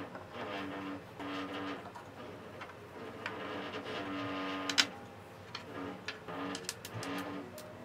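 A small motor whirring in short runs at a steady pitch, starting and stopping every second or so, with a few sharp clicks of hard plastic toy parts being set down on a table.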